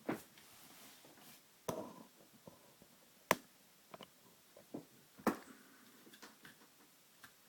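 Irregular sharp metallic clicks and taps of a pin-tumbler lock being taken apart with a plug follower, about ten in all, the loudest a little past three seconds in.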